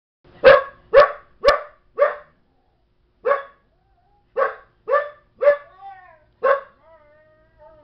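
Belgian Malinois barking in short, sharp barks: four in quick succession about half a second apart, then after a pause five more. After the last two barks comes a drawn-out, wavering whine-like dog call.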